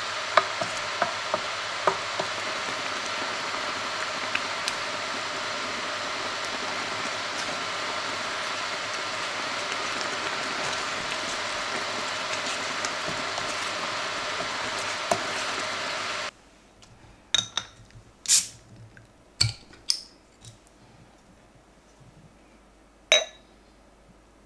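Rosé tteokbokki sauce cooking in a nonstick pan with a steady hiss, with light knocks of a wooden spoon stirring against the pan. It cuts off abruptly and is followed by about six sharp clinks of a beer bottle and a drinking glass on a table.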